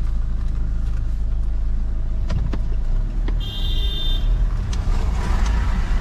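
Car driving, heard from inside the cabin: a steady low rumble of engine and tyres. A few sharp clicks sound just past the middle, and a brief high tone comes about three and a half seconds in.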